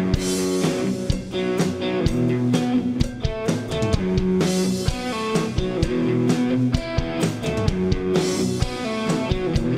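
Live garage rock from an electric guitar and drum kit: an instrumental passage between sung lines, the guitar holding chords over a steady drum beat.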